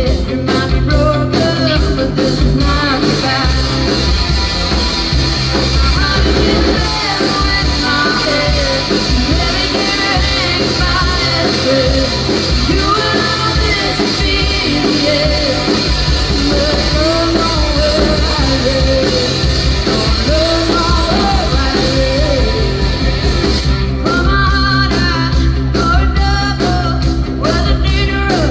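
Live rock band playing, with a melody line weaving over bass and drums. The drums drive hard at the start, ease through the middle and come back in full near the end.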